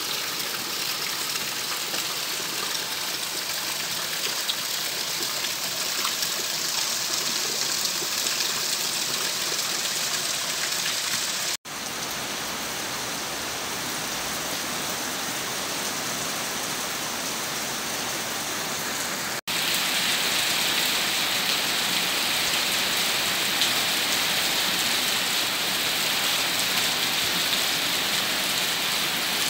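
Heavy rain pouring down steadily onto ground, puddles and paving: a dense, even hiss. It cuts out for an instant twice, and is a little louder after the second break.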